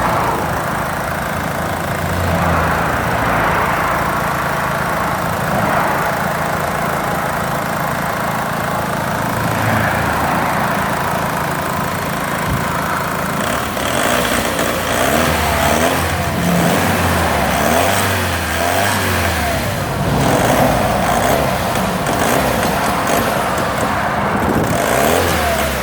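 Vauxhall Omega engine running with a misfire, its revs rising and falling in the second half.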